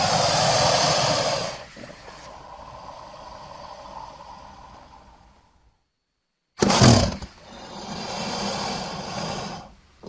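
An American crocodile hissing and growling in two separate bursts. The first is loud at the start and then trails off over a few seconds; the second starts abruptly about six and a half seconds in and holds for about three seconds.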